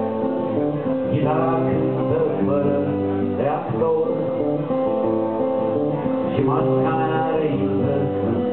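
Acoustic guitar strummed steadily, with a man singing a folk song over it.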